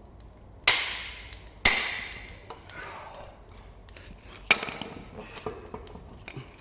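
Hammer striking metal to drive the old, burnt-out bush from a leaf spring eye: two heavy blows about a second apart, each ringing on as it dies away, then a lighter blow and a few smaller taps near the end.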